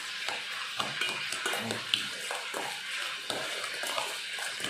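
Metal spoon stirring and scraping a wet, seasoned fish mixture in a stainless steel pot, with irregular small clinks of spoon against pot.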